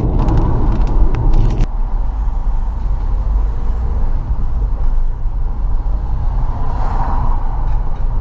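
Car on the move, heard from inside the cabin: a steady low rumble of road and engine noise, with a louder rush and a few light rattles for the first second or two.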